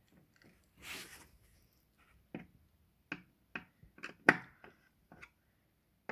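Irregular sharp clicks and knocks of a screw being hand-driven into a desk's metal frame and wooden top, after a brief rustle about a second in.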